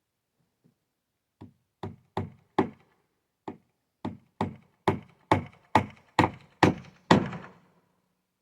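Hammer driving nails into wood: about a dozen sharp blows, roughly two a second with a short pause early on, getting louder toward the end, the last one ringing briefly.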